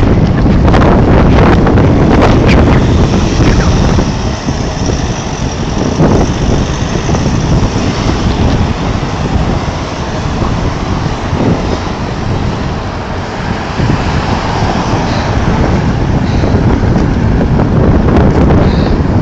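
Strong blizzard wind buffeting the microphone, a loud and uneven rush, with road traffic noise mixed in.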